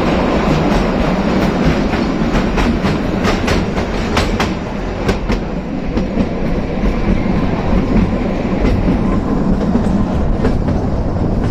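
Kalka–Shimla narrow-gauge toy train running, a steady rumble with the wheels clicking over rail joints, in a quick run of clicks from about two to five seconds in.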